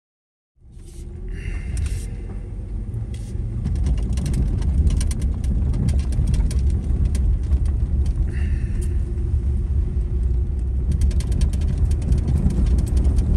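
Car driving on a gravel road, heard from inside the cabin: a steady low rumble of tyres and engine with many small clicks and pings of gravel, starting abruptly about half a second in. Two short high chirps come through, once near the start and once midway.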